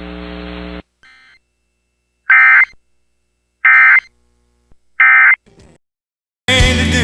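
Three short, loud bursts of screechy Emergency Alert System SAME data tones, about a second and a half apart: the end-of-message code that closes an alert. A low hum from the broadcast cuts off just before them, and music starts near the end.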